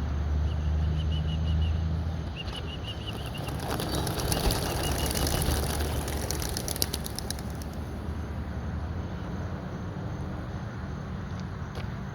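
A flock of about fifty homing pigeons taking off together on release: a dense burst of wing flapping and clapping about three and a half seconds in that lasts about four seconds, over a low steady rumble.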